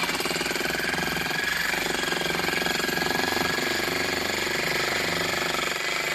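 Cheap jackhammer starting abruptly and hammering steadily with rapid, even blows.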